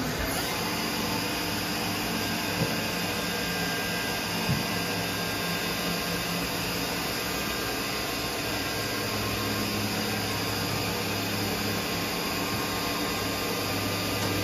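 Mazak VCC-5X 20K five-axis machining centre running with its axes moving, the tilting rotary table swinging and traversing: a steady mechanical hum with faint whining tones, and two short clicks in the first five seconds.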